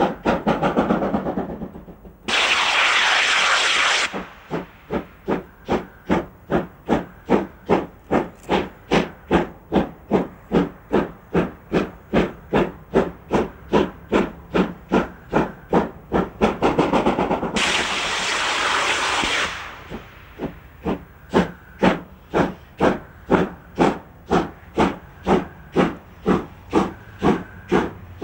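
DR class 01.5 Pacific steam locomotive working hard with a passenger train, its exhaust chuffing in a fast, even beat of about three a second. Twice a loud hiss of escaping steam rises over the beat for about two seconds, first about two seconds in and again past the middle.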